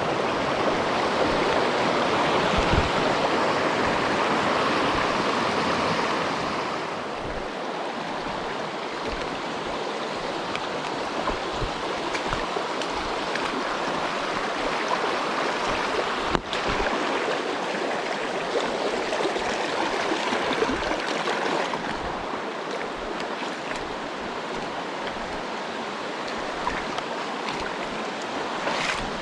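Mountain stream rushing over rocks, a steady noise of flowing water, louder for the first seven seconds or so and then a little softer.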